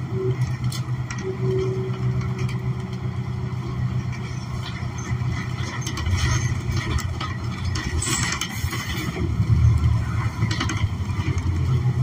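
Interior of a New Flyer XN40 city bus under way: the Cummins Westport ISL G natural-gas engine and Allison transmission give a steady low drone that swells about six seconds in and again near ten seconds. Interior fittings rattle and click throughout, with a brief hiss about eight seconds in.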